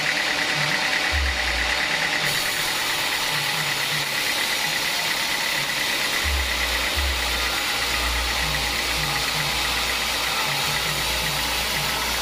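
Home-built vertical band sawmill running, its blade sawing lengthwise through a teak beam on the carriage: a steady mechanical noise, with a low rumble that comes and goes and runs more steadily through the second half.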